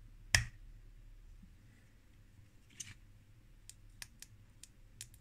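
Small mechanical parts clicking as they are handled. There is one sharp, loud click about a third of a second in, then a scatter of lighter clicks and ticks in the second half.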